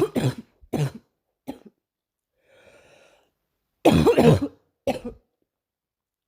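A girl coughing in bouts: a few short, sharp coughs at the start, a quiet breath in, then a longer, louder run of coughs about four seconds in and one more just after.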